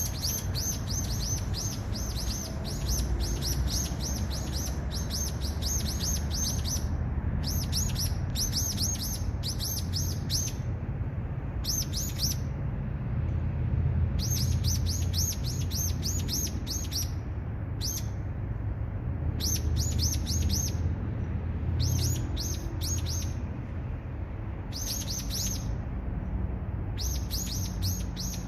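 A songbird calling in quick runs of short, high, downward-slurred notes, about five a second, each run lasting from under a second to several seconds with brief pauses between. A steady low rumble lies underneath.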